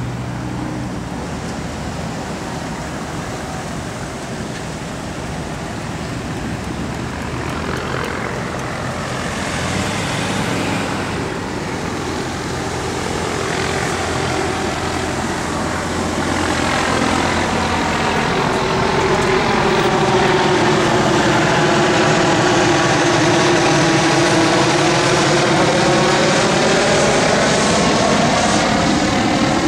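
Helicopter flying overhead, its rotor and engine sound building from about the middle and loudest through the last ten seconds, over the steady sound of police cars and trucks driving past on the road.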